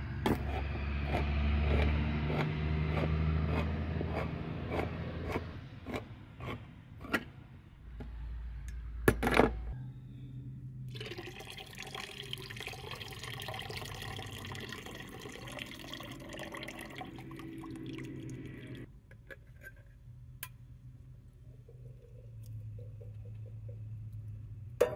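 Hand-crank can opener cutting around the rim of a large tin can of corn, grinding with a run of regular clicks, then a loud clatter about nine seconds in. The corn's canning liquid is then poured off into a bowl in a steady splashing stream for about eight seconds, and a sharp knock near the end comes as the corn is tipped into a cast-iron pot.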